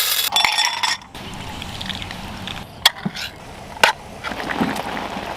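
A short burst of loud noise, then two sharp clinks about a second apart, each with a brief ring.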